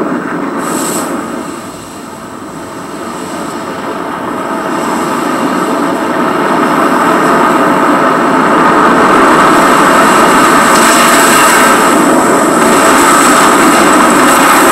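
Film sound effects of a giant tidal wave: a deep, rumbling rush of wind and water that dips about two seconds in, then builds steadily and holds loud.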